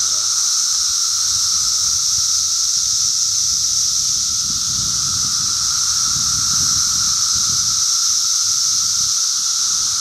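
Brood X periodical cicadas in a dense chorus: a steady, unbroken high hissing drone with a fainter lower buzz beneath it, and an uneven low rumble underneath.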